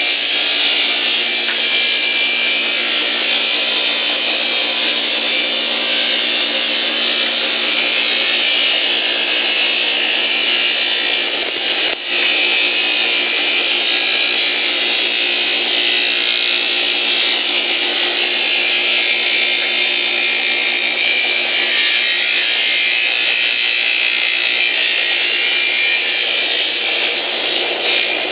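Powered timber sawing machine running steadily and cutting wood into boards, a loud continuous saw noise with a short dip about twelve seconds in.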